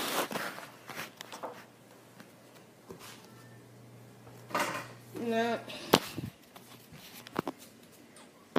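Handling noise from a phone camera being set up: rubbing and scattered knocks, with a sharp tap about six seconds in and another about seven and a half seconds in. About five seconds in there is a short, wavering hummed voice sound.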